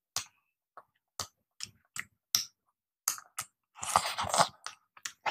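Close-miked eating noises from a man eating khichdi with a spoon: a string of short, wet lip smacks and chewing clicks at irregular intervals, with a denser burst of chewing about four seconds in.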